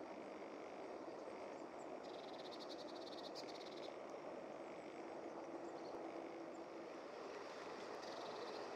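Great grey shrike singing: a few short high chirps and a fast, high trill of rapidly repeated notes about two seconds in, lasting nearly two seconds, with another trill starting near the end. Steady low background noise underneath.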